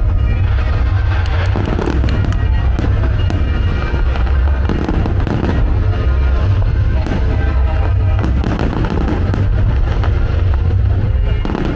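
Fireworks display bursting over a music soundtrack: continuous deep booms, with a run of sharp crackling shells about a second in.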